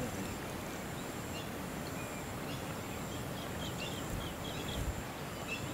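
Steady outdoor background hiss with a few short bird chirps bunched between about three and four and a half seconds in.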